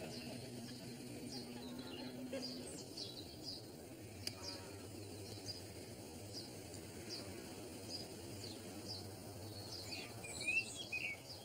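Small birds chirping in short, scattered calls over a faint, steady outdoor hum, with a louder cluster of chirps near the end.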